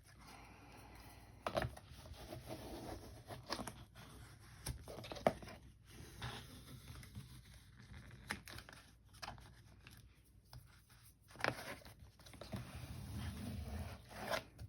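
Faint handling of paper and a ring binder: rustling and crinkling with scattered light taps and knocks as a glued cover is pressed down.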